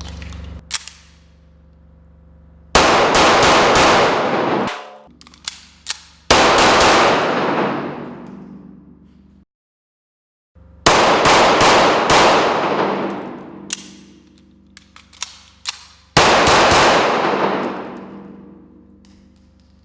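Four bursts of rapid gunfire, each a quick string of shots followed by a long echoing decay, with a few lighter metallic clicks in between.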